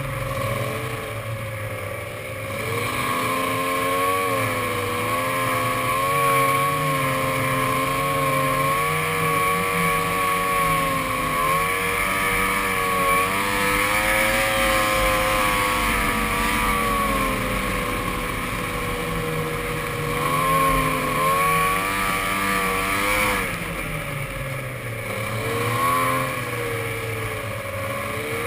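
Arctic Cat ZRT 600 snowmobile's three-cylinder two-stroke engine running under way. Its pitch rises and falls as the throttle is eased and opened, dipping about two seconds in and climbing then dropping again about three-quarters of the way through, over a steady rushing noise.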